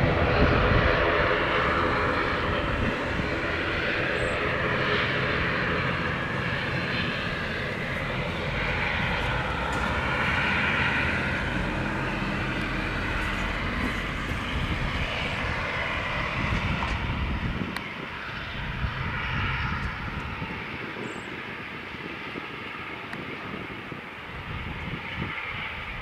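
Aircraft engines running at an airfield: the steady rush and rumble of a Cessna Citation CJ3's turbofan engines as it moves along the runway, mixed with a twin-turboprop airliner taxiing with its propellers turning. The sound is loudest at the start and slowly fades.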